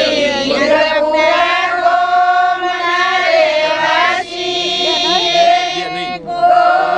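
Several voices singing a wedding song, the melody running over a steady held note.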